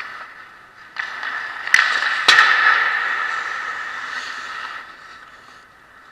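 Ice hockey play heard from a camera on the goal net: skate blades scraping and carving on the ice, strongest in the middle and then fading. There are two sharp clacks about half a second apart, about two seconds in.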